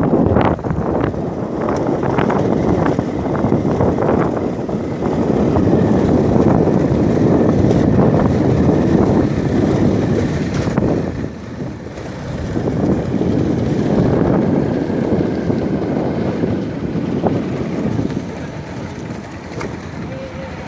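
Motorcycle being ridden over a rough gravel track: wind rushing over the bike-mounted microphone with the engine running beneath, and a few knocks from bumps in the first few seconds.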